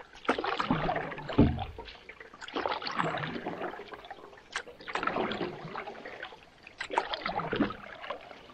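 Canoe paddle strokes in lake water, about one every two seconds, each with a splash and dripping, and a thump about a second and a half in.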